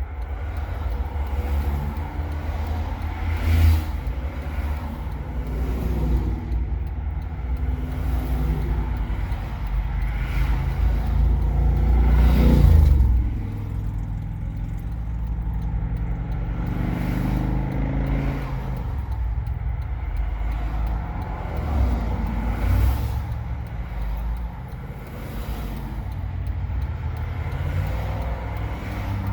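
Road traffic going by: vehicles pass one after another over a steady low rumble, the loudest pass about twelve seconds in.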